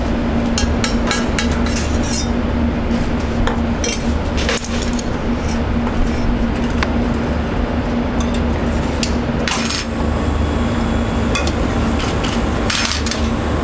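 Metal spoon clinking and scraping against a copper sauté pan and stainless steel ring moulds as food is spooned onto plates, in scattered clinks. Under it runs a steady low machine hum.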